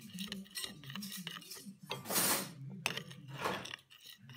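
A spoon stirring slime in a bowl, clinking and scraping against it, with two louder swishing noises about two and three and a half seconds in.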